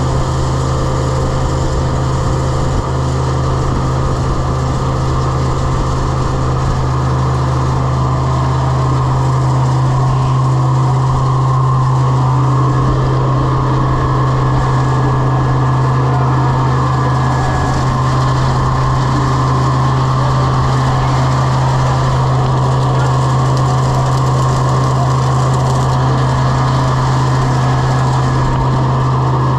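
Grain vac running steadily at full speed: a loud, unchanging mechanical drone with a strong low hum, after spooling up just before.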